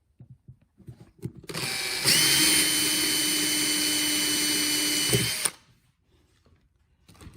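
A small power tool runs steadily for about four seconds with a steady whine. It starts about a second and a half in, gets louder half a second later, and cuts off suddenly.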